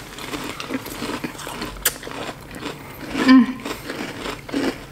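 Close-up chewing and crunching of a crisp, marshmallow-studded cereal, a run of small crunches, with one short murmur of voice a little past three seconds in.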